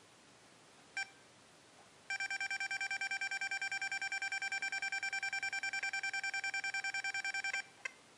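XP Deus metal detector remote's keypad beeping: one short beep, then a fast run of identical beeps, about nine a second, for about five and a half seconds while a button is held to scroll the DISC setting down, and a last single beep near the end.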